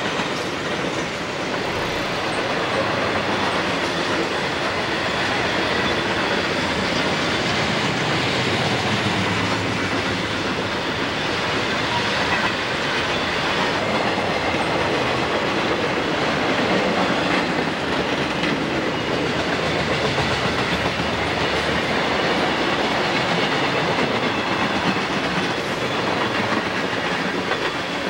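Freight cars of a passing Conrail train rolling by: steady wheel-on-rail noise that holds at an even level throughout.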